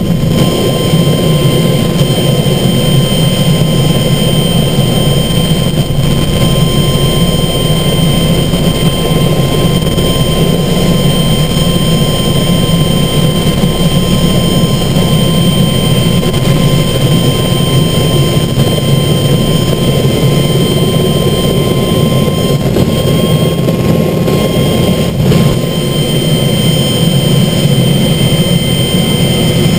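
Light helicopter's engine and rotor noise heard from inside the cockpit: a loud, steady drone with a constant high whine over it.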